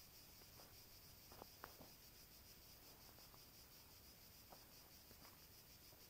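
Faint, steady insect chorus, high-pitched and evenly pulsing, with a few soft clicks and taps from handling gear about a second and a half in and again near the end.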